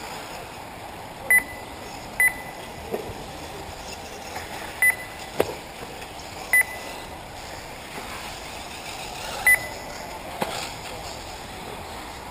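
Five short, loud electronic beeps at irregular intervals, the lap-timing system registering RC buggies as they cross the timing loop, over a steady outdoor hiss; a sharp click stands out about halfway through.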